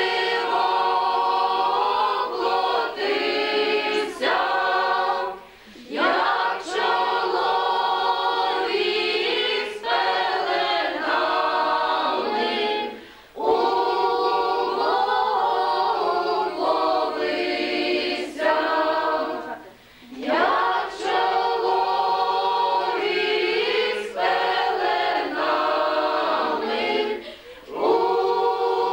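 Group of women and girls singing a Ukrainian Christmas carol (koliadka) unaccompanied, in phrases broken by short breath pauses about every seven seconds.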